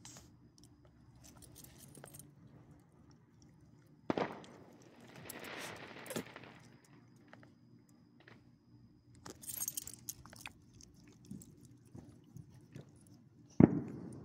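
A few sharp bangs, one about four seconds in followed by a couple of seconds of hiss and another louder one near the end. In between, the faint jingle of a dog's metal collar tags.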